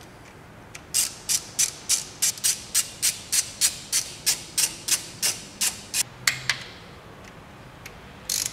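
Hand ratchet clicking in quick, even strokes, about three a second, as it runs down camshaft bearing cap bolts. It stops about six and a half seconds in and starts clicking again just before the end.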